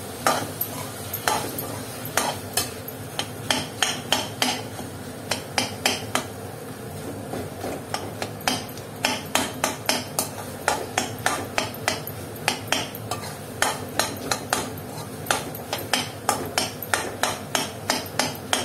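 Metal spoon clinking and scraping against a steel kadhai while boiled potatoes are broken up and stirred into a tomato mixture: a run of sharp clinks that come faster from about halfway.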